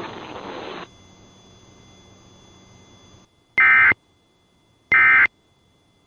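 Two short, loud bursts of Emergency Alert System digital data tones, each about a third of a second and about 1.3 s apart: the end-of-message bursts that close an EAS alert. They come after a few seconds of faint radio hiss that cuts off.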